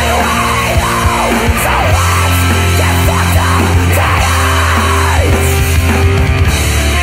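Loud, heavy rock music with distorted guitars, a strong bass line and drums.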